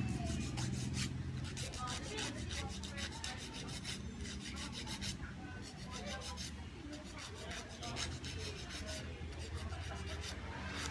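A nail file rasping across fingernails in quick, repeated back-and-forth strokes.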